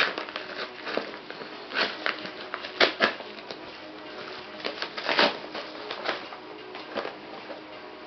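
A mailing envelope being torn open and handled, with irregular paper crackling and rustling and a few louder crinkles about three seconds in and again about five seconds in.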